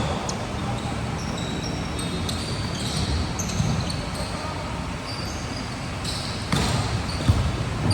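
Ball impacts and sneakers squeaking on a court during a volleyball rally, with players' voices. Two sharp hits come late on, and the squeaks come several times in the first half.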